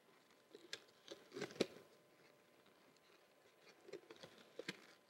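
Faint handling sounds of latex balloons being pressed and fitted together: scattered soft rubs, squeaks and taps, the loudest about a second and a half in and another cluster near the end.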